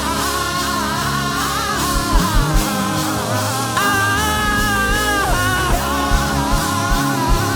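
Live gospel worship band playing between sung lines: a gliding melodic lead over bass and a steady drum beat.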